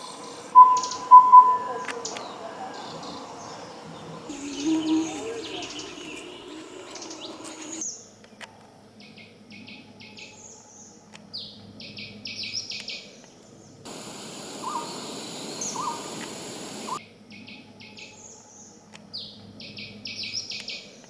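Wild forest birds singing and calling: repeated high, rapid chirping phrases, with two loud whistled notes about a second in and three shorter whistled notes a little past the middle. The background changes abruptly a few times.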